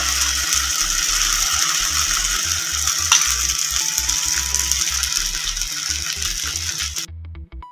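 Oat-and-apple pancake batter frying in hot oil in a non-stick pan, a steady sizzle with one sharp click about three seconds in, over background music. The sizzle cuts off abruptly near the end, leaving only the music.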